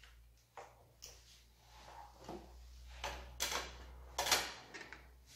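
Handling noises from unboxing and assembling a Husqvarna 130 chainsaw: a string of short knocks, clicks and scrapes of plastic and metal parts, the loudest two just past the middle, over a steady low hum.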